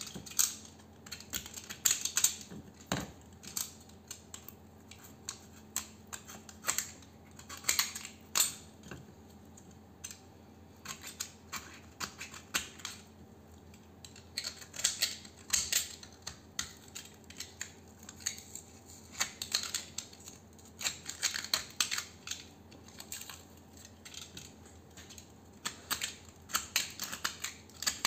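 Knife blade scraping and cutting the insulation off a small transformer's copper winding, in short, sharp strokes that come in irregular runs with brief pauses, over a faint steady hum.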